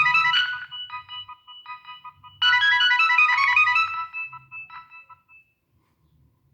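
Polyphonic ringtone played on a Nokia 6585i: a short, bright synthesized melody in chords, with two louder full passages and lighter notes between, stopping about five seconds in.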